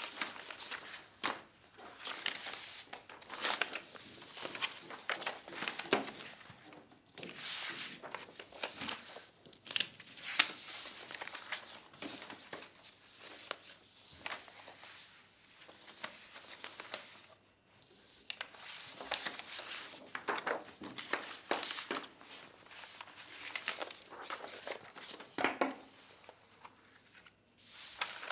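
Sheets of paper and photographs being handled and leafed through on a tabletop: continual rustling and crinkling in irregular bursts, with a few brief lulls.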